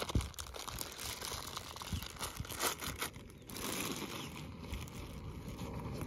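Clear plastic bag crinkling and rustling as a camera lens is pulled out and unwrapped, with the clicks and scuffs of hands in a zippered backpack. About three and a half seconds in, the crackling gives way to a steadier low rumble.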